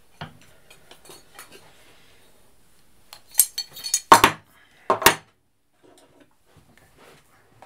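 Knitting-machine claw weights being taken off the knitting and set down on a wooden table: a cluster of hard clinks and clacks a few seconds in, then two sharp clacks about a second later.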